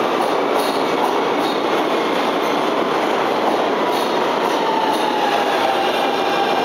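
New York City subway Q train running alongside the station platform: a loud, steady rumble of steel wheels on rail with light clacking. About four seconds in, a thin whine sets in and slowly falls in pitch.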